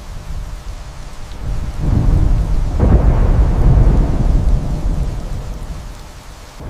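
Thunder rumbling over steady rain, swelling about two seconds in and again a second later, then slowly fading.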